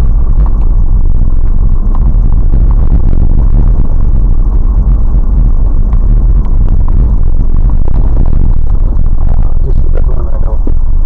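Vehicle driving over a rough snow-covered track, heard from inside the cabin: a loud, steady low rumble with frequent small knocks and rattles.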